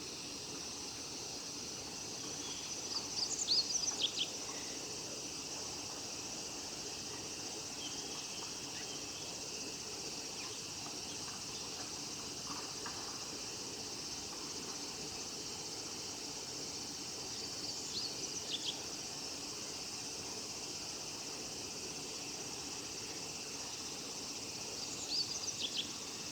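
Male meadow bunting singing: three short, quick song phrases spread across the stretch, over a steady high-pitched insect chorus.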